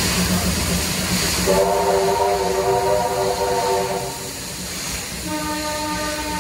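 Steam locomotive whistle sounding a long chord of several notes over the steady hiss and rumble of a moving train, followed near the end by a second, shorter single-note blast.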